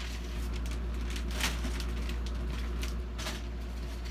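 Plastic bag crinkling and rustling as it is pulled off a foam RC model plane's fuselage, with a sharper crackle about one and a half seconds in, over a steady low hum.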